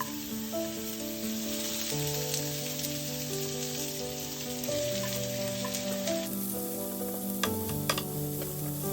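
Vegetables and garlic sizzling in olive oil in a pan over medium heat as they are stir-fried. The sizzle cuts off suddenly about six seconds in, and a few light knocks follow near the end.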